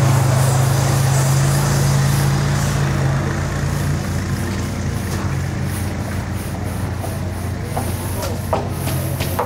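An engine running steadily: a low hum under a haze of noise, a little quieter from about four seconds in, with a few faint ticks near the end.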